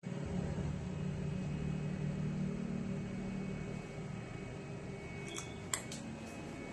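A fan running with a steady hum, heaviest in the first few seconds, then a few light clicks about five to six seconds in.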